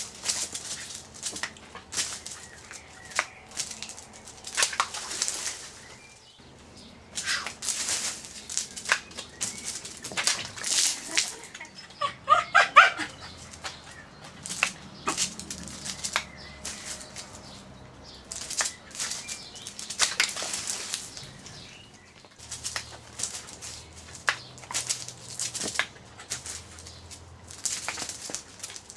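Jack Russell terrier leaping and snapping at water balloons: its jaws clap shut with sharp snaps, amid repeated brief bursts of rustling and scuffling.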